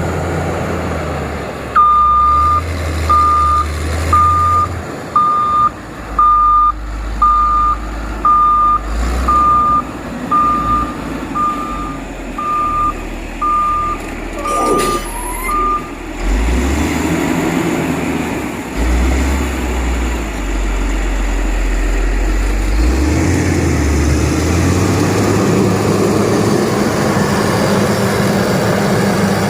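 Reverse alarm of a heavy road-construction machine beeping about once a second, a dozen times, over its diesel engine running at a low rumble; the beeps stop about halfway through and the engine runs on, its pitch shifting as it works.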